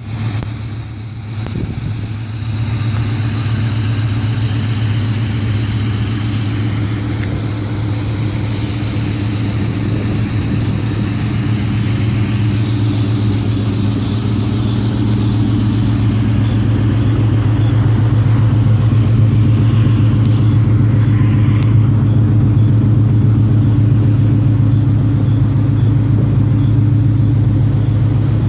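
Ford Mustang engine idling steadily with a rapid clicking from the engine, a noise whose cause the owner cannot tell.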